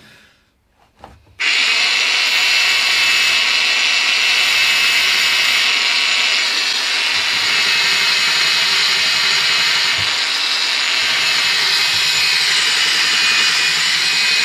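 Cordless angle grinder with a finger belt sander attachment starts about a second and a half in and runs steadily with a high whine, its abrasive belt rubbing on a steel crankshaft journal to blend and polish it.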